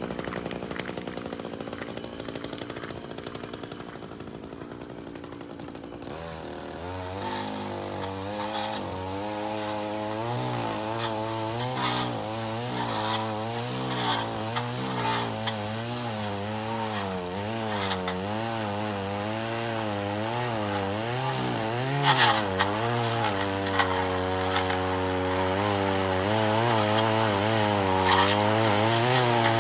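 Gas string trimmer engine running quietly at first, then revved up about seven seconds in, its pitch rising and falling over and over as it cuts. Sharp crackles come in throughout as the line strikes grass and concrete at the pavement edge.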